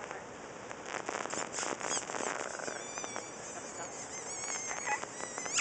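Yellow-naped Amazon parrot making high squeaks and warbling chirps, against a patter of small clicks. A quick rising whistle comes near the end.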